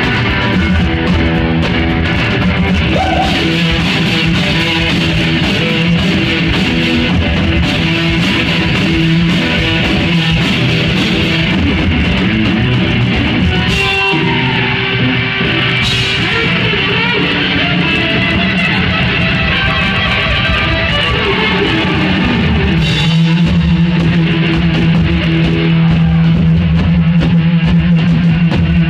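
Live rock music from a two-piece band: electric guitar and drum kit playing loud, with cymbal crashes. A steady low note holds through the last few seconds.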